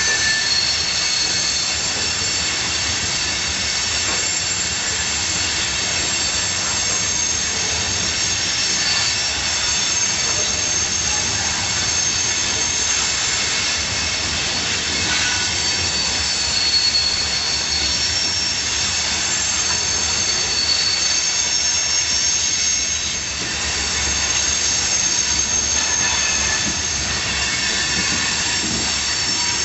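Freight train cars rolling past with a continuous high-pitched screech from steel wheels squealing, several shrill tones at once that fade in and out and shift in pitch. The screech comes from the wheels crossing a switch.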